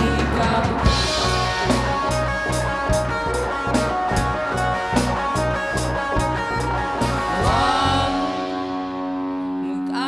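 Pop-rock band playing live: drum kit keeping a steady beat under electric bass and guitars. About eight seconds in, the drums and bass drop out, leaving held chords ringing.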